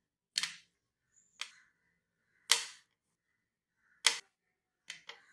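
Kitchen knife chopping through boiled potatoes and striking the cutting board: about six separate sharp knocks, roughly one a second, the last two close together near the end.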